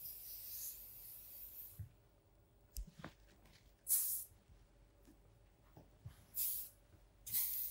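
Wella Mistify Me Light flexible-hold hairspray hissing in one long spray of about two seconds, then three short bursts.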